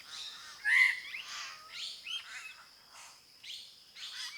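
Forest birds calling: a run of short chirps and whistled notes, some gliding in pitch, over a faint steady high-pitched hum.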